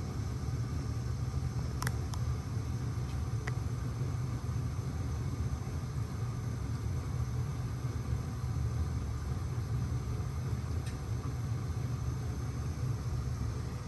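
Steady low hum of a reef aquarium's pumps and water circulation, with a few faint clicks about 2, 3.5 and 11 seconds in.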